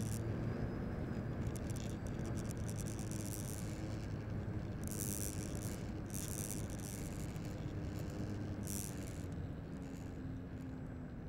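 Onboard sound of a radio-controlled model airplane coming in to land on a concrete strip: a steady drone of motor and airflow with faint low tones that ease off near the end. Short bursts of high-pitched rattling from the airframe come several times, most strongly around the middle and again near the end as it touches down and rolls.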